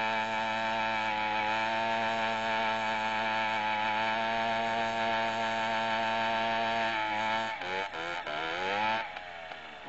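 Small two-stroke motorcycle engine held at high revs, a steady high buzz. About seven and a half seconds in, the revs drop, climb again briefly and then fall away.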